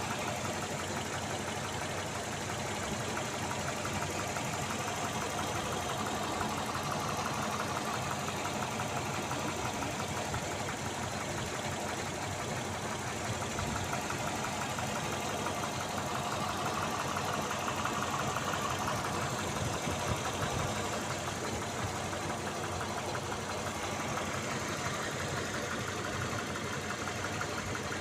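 Car engine idling steadily with a fast, even knocking from inside the engine: the engine knock that the AWS NT-10 anti-wear additive is meant to quieten.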